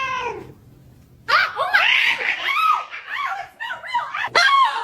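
A woman laughing hard in many short, high-pitched bursts, starting about a second and a half in after a brief lull.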